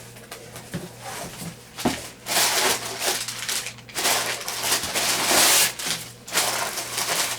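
Packaging being handled while items are unpacked from a shipping box: a couple of light knocks, then loud bursts of rustling and crinkling from about two seconds in.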